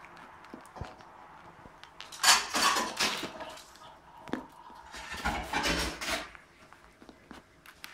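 Small dog biting and chomping at a firm slice of fruit held in a hand: two loud rough bouts of crunching and chewing, about two seconds in and again about five seconds in.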